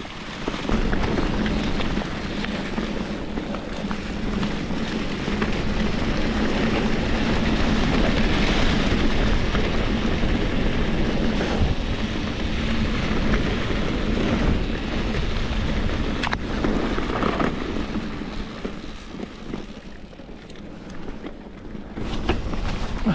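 Mountain bike's Maxxis Forekaster knobby tyres rolling over a thick layer of dry fallen leaves on a forest trail: a steady rush of noise mixed with wind on the microphone, dropping for a few seconds near the end.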